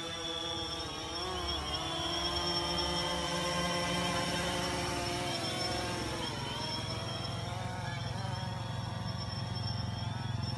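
DJI Phantom 3 Standard quadcopter in flight, its four propellers giving a buzzing whine that bends up and down in pitch as the motors speed up and slow down with the drone's movements. A steady high-pitched tone runs above it.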